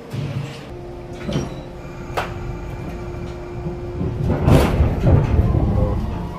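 Passenger doors of a 415-series electric train sliding shut at the platform: a knock, a couple of sharp clicks, then a louder rush of noise with a thud about four and a half seconds in.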